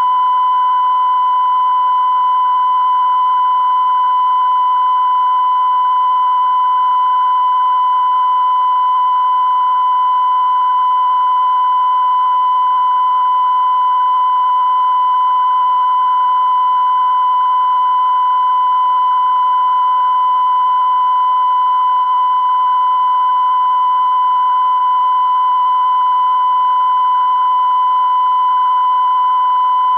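Continuous test tone broadcast with the UEIT television test card: a single high-pitched tone held at one steady pitch and level without a break.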